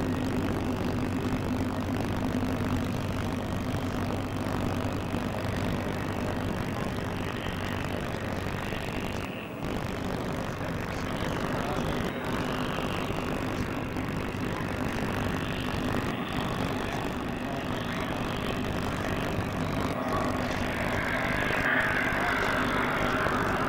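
Steady drone of a distant aircraft engine, with a low hum and outdoor background noise.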